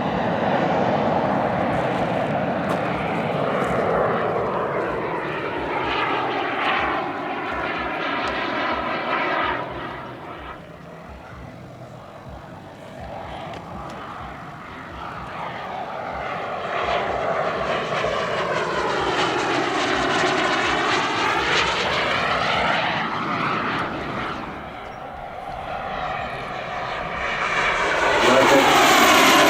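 Turbine-powered model jet flying passes. Its engine whine swells and fades three times, sweeping in pitch as it goes by, loudest near the end.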